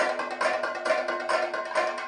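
Kathakali percussion: drums beaten in quick strokes, several a second, over the sustained ringing of metal cymbals.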